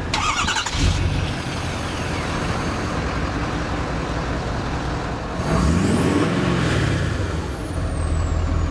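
2011 Ford F-250 Super Duty's 6.7-litre Power Stroke V8 turbo diesel running just after a start, with a brief rise and fall in engine speed about five and a half seconds in.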